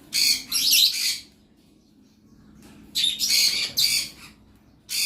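A bird giving loud, harsh, rasping squawks: two near the start, three more about three seconds in, and another at the very end.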